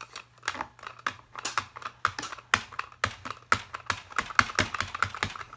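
Ink pad tapped over and over onto a clear photopolymer stamp mounted on a Stamparatus platform, re-inking it for a second press: a quick, irregular run of light plastic clicks, several a second.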